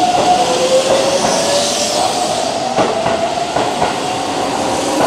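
Keihan electric commuter train moving past along the platform: the traction motors' whine steps down in pitch just after the start and then slowly rises as the train gathers speed, with a few clacks of wheels over rail joints around the middle.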